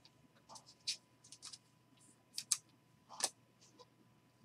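Glossy Panini Prizm basketball trading cards being flipped through by hand: about eight short, sharp card slides and flicks spaced irregularly.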